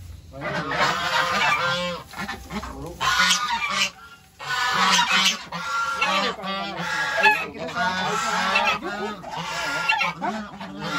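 Several white domestic geese honking again and again, their calls overlapping, with a short lull about four seconds in.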